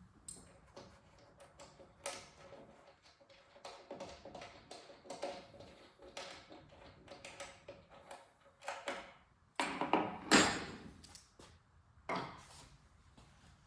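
Irregular clicks, taps and clanks of hands working with tools and metal parts, with the loudest clatter about ten seconds in.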